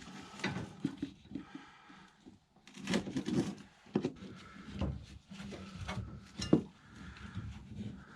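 Irregular knocking and clattering of tools and pipe fittings being handled, with a sharp click about six and a half seconds in.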